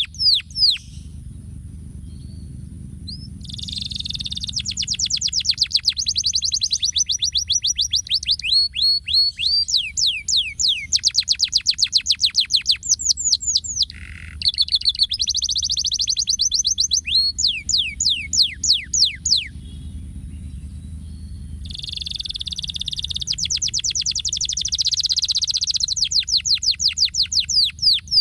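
Domestic canary singing long rolling phrases of rapid repeated notes, some sweeping quickly downward. The song breaks off briefly about two seconds in and again about twenty seconds in. A steady low rumble runs underneath.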